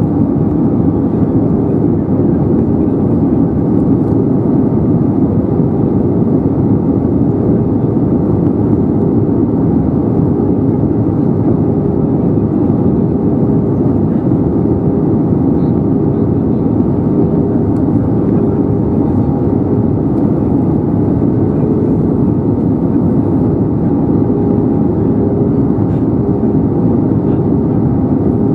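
Steady cabin rumble of an Airbus A320neo in descent, heard from inside the cabin, with a faint steady hum on top.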